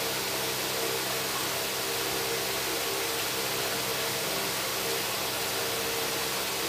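Electric fan running: a steady airy hiss with a constant hum from its motor underneath.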